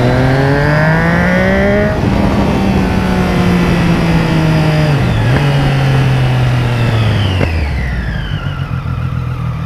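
Motorcycle engine heard from the rider's seat while it accelerates. The revs climb for about two seconds and drop at a gear change, then run steady with a brief dip about five seconds in, and fall away near the end as the bike slows.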